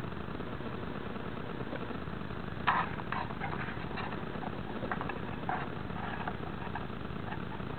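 Close handling noise on a model rocket's onboard camera as fingers fasten the igniter clips onto the igniter leads: a few short clicks and scrapes, the loudest about two and a half seconds in, over a steady hiss.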